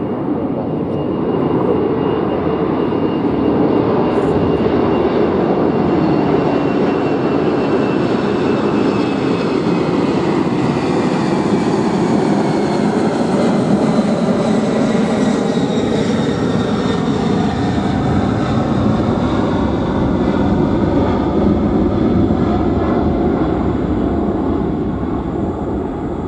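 Four-engined Singapore Airlines Cargo Boeing 747 freighter climbing out and passing overhead: a loud, steady jet roar. Whining tones glide downward as it goes by, about halfway through.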